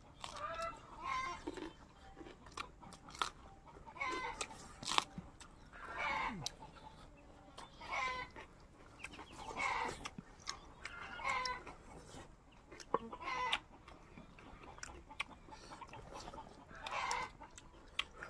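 Chickens clucking, short calls about every two seconds, with crunchy chewing and biting sounds between them.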